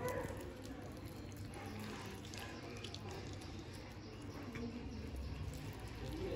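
A cat chewing a piece of raw fish: soft, irregular clicks and smacks of eating.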